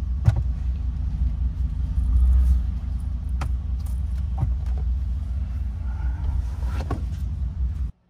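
A steady low rumble with a few sharp clicks and knocks as the replacement steering wheel is fitted onto the column by hand.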